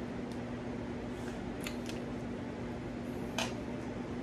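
Soft chewing with a few small mouth clicks while eating spaghetti and meatballs, one sharper click about three and a half seconds in, over a steady low hum.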